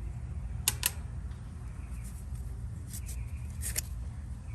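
Small sharp clicks and taps from handling the old run capacitor just pulled from its bracket: a quick pair just under a second in, and a few more later, over a steady low hum.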